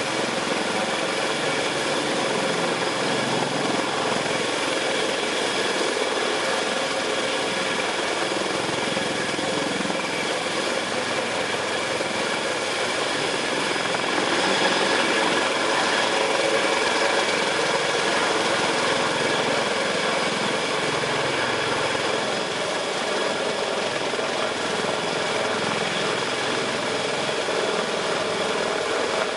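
Sikorsky CH-53K King Stallion heavy-lift helicopter in low flight: the steady whine of its three GE38 turboshaft engines, several high tones at once, over a rushing rotor noise. It grows a little louder about halfway through.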